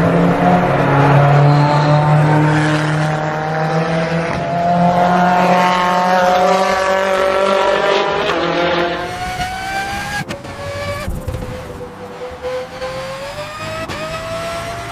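Race car engine revving, its pitch gliding up and down. It is louder for the first nine seconds or so, then quieter, with a higher pitch that rises slowly.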